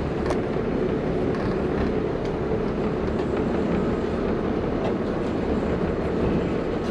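Steady low rumble of a charter fishing boat's idling engine, mixed with wind buffeting the microphone.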